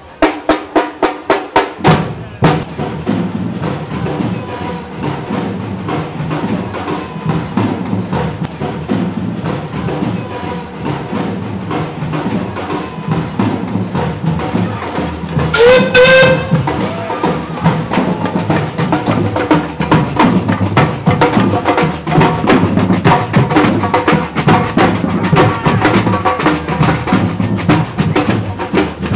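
Drum-led music with quick rhythmic knocking, and a short, loud steam-engine whistle blast a little past halfway that rises slightly in pitch.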